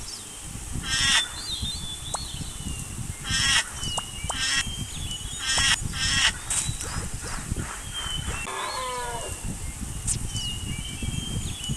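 Animals calling: several short, high calls in the first half and a falling call about eight and a half seconds in, over a low rumble.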